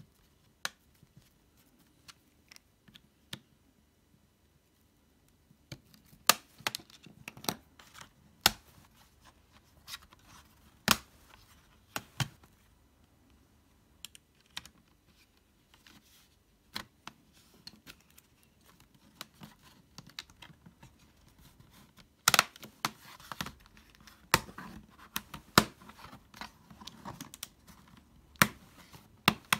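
Plastic bottom cover of a Packard Bell Dot S netbook handled and pressed down by hand, its plastic clicking and snapping in scattered sharp clicks. The clicks come sparsely at first, then busier near the end with some scraping and rubbing of plastic.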